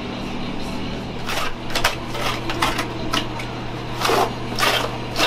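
Gloved hand working wet cleaning wipes through cat-waste sludge in a bathtub, making a series of short, irregular wet rustles and scrapes. A steady low machine hum runs underneath.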